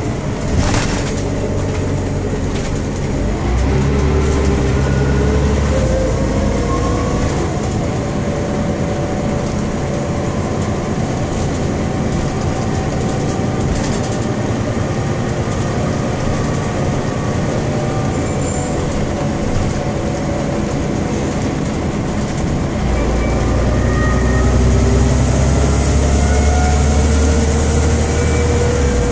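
Scania OmniCity city bus heard from inside the cabin: its Scania DC9 five-cylinder diesel engine and ZF 4HP 502 automatic gearbox run steadily. Twice, about three seconds in and again about 23 seconds in, the engine note rises with a heavier low rumble as the bus accelerates.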